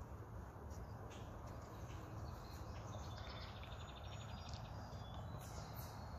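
Quiet garden background: a steady low rumble with faint distant bird chirps, including a short rapid trill about three to four seconds in.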